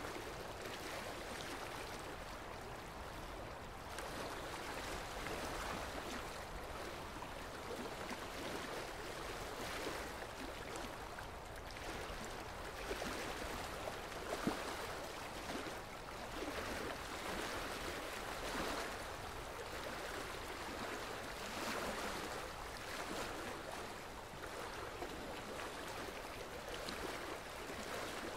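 Dental suction and an ultrasonic scaler's water spray during tartar removal: a steady watery hiss and gurgle that swells and fades. A couple of short clicks come about halfway through.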